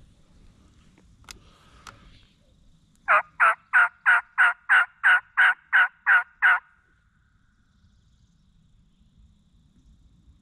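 A series of about twelve loud, evenly spaced turkey yelps, about three a second, lasting some three and a half seconds. A few faint clicks come before them.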